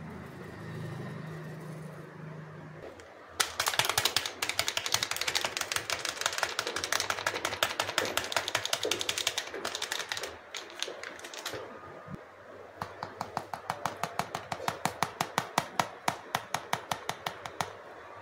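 Rapid, evenly spaced clicking of a spice packet being tapped to shake powdered spice out over a steel bowl of chopped vegetables, in two runs of several seconds each.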